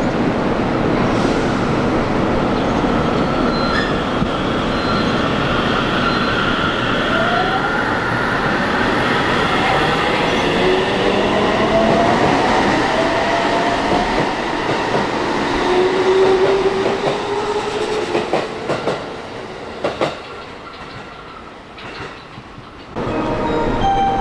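JR Central 313 series electric train running in along the platform: steady rolling noise with motor and inverter whine sliding in pitch, then a few sharp clacks, after which the noise falls away. Near the end there is a sudden cut to a louder sound with steady tones.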